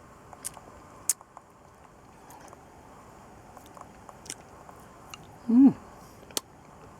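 Mouth sounds of someone eating a lollipop: scattered sharp wet clicks and smacks, with a short voiced hum-like sound about five and a half seconds in.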